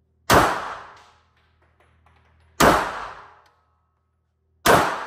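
Three shots from a Glock 48 9mm pistol, about two seconds apart, each a sharp crack followed by echo dying away over about a second.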